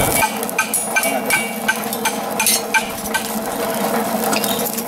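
Hammer tapping an iron ox-yoke bow pin against an anvil as it is bent round a forked jig, light blows about three a second, each with a short metallic ring.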